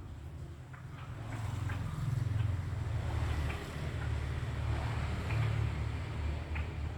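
Straw-headed bulbul giving faint, short, scattered notes, about one a second, over a steady low rumble that is louder than the bird.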